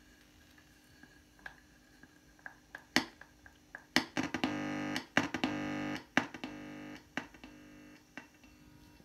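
Knocks and sniffs from a dog's nose on a handheld microphone, played through a DigiTech RP guitar multi-effects pedal set to distortion and echo. Each knock sets off a buzzing, pitched tone, and the sounds repeat about once a second, each repeat fainter than the last.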